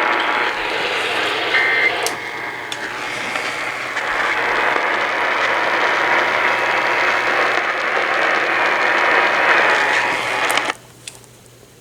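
Radio static: a steady, noisy hiss from a radio receiver with no clear speech in it. It cuts off suddenly near the end.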